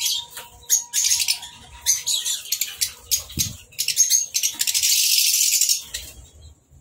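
A flock of small white aviary birds flapping their wings and fluttering against wire mesh, with a few short high chirps. About four and a half seconds in, a dense rush of wingbeats lasts just over a second.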